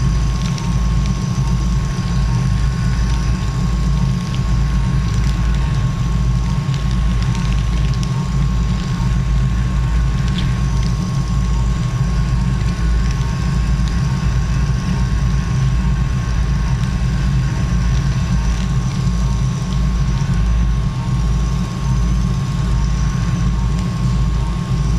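Steady low rumble of operating-room equipment during arthroscopic shoulder surgery, with a constant high-pitched tone running through it.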